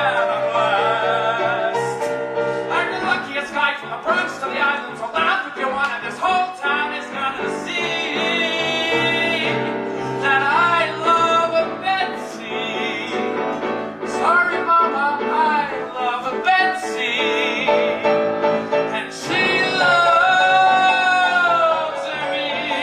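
Show-tune music: a singing voice holding long notes with vibrato over instrumental accompaniment, building to a long sustained note near the end.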